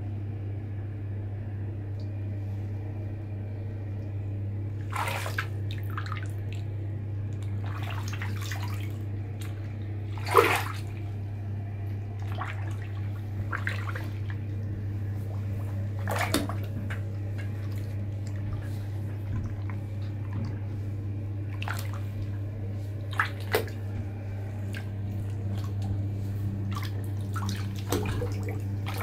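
Bathwater splashing and sloshing around feet in canvas Converse sneakers as they move in a bathtub, in scattered short splashes, the loudest a little over a third of the way in. A steady low hum runs underneath.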